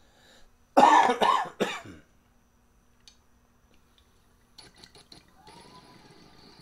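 A man coughs in a short burst of three or so coughs. About five seconds in, a faint steady bubbling hiss begins as he draws through the water-filled glass dual recycler dab rig.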